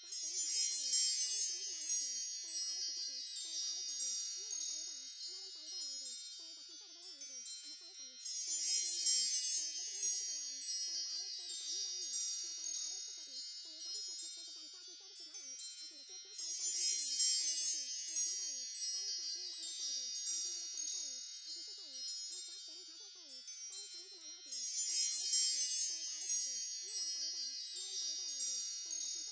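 Tinkling wind chimes in a repeating loop that restarts about every eight seconds, each pass starting bright and slowly fading.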